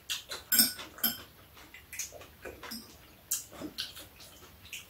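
Eating at a table: chopsticks and a spoon clicking irregularly against bowls and dishes, mixed with chewing and lip-smacking.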